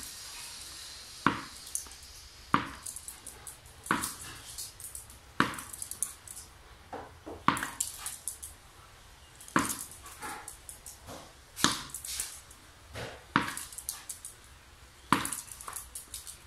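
Tennis ball bouncing on a hard floor, a sharp knock about every one and a half to two seconds, around ten times, with a few fainter knocks in between.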